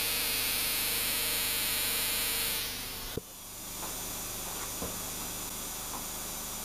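A spark plug fired continuously by a 12-volt high-voltage ignition module: the spark across the gap makes a steady, noisy hiss-buzz. It stops a little under three seconds in, followed by a sharp click, leaving a faint steady hum.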